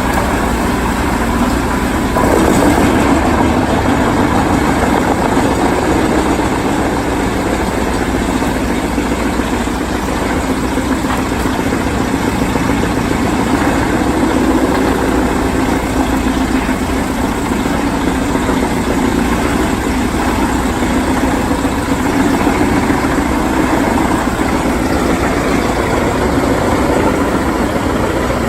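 Heavy wood chipper running steadily, its engine and chipping noise growing louder about two seconds in.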